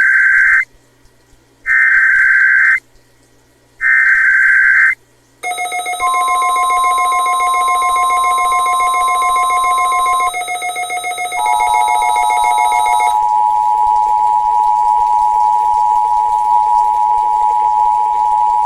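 Emergency Alert System tones over NOAA Weather Radio: three one-second bursts of the SAME digital header, a short gap, a single steady tone for about four seconds, then the two-tone EAS attention signal held steadily to the end.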